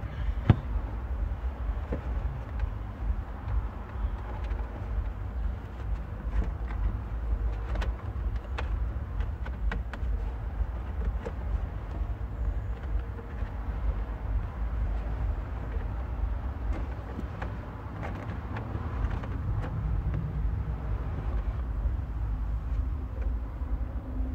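Scattered small clicks and rustles of wiring being tucked under the car's carpet and trim, over a steady low rumble.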